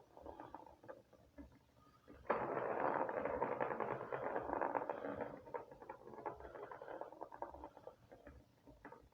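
Rustling and scratching from a kitten at play, with a dense, louder stretch of scratchy rustling beginning about two seconds in and lasting about three seconds, then sparser scattered scratches and ticks.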